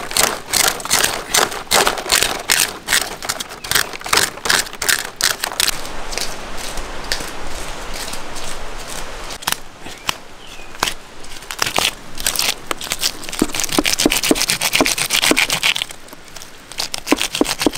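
Scales being scraped off a large fish in quick repeated strokes, about three a second, each a crackling rasp. The strokes run together into a denser rasp about two-thirds of the way through.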